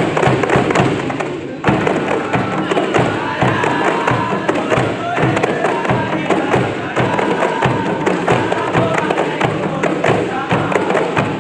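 A kompang ensemble: many Malay hand-struck frame drums beaten together in a fast, steady interlocking rhythm, with voices singing over the drumming.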